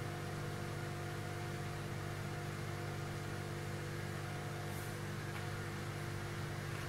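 Miniature disc sander built from an old hard drive, its spindle motor running the sanding disc idle with a steady hum and whir.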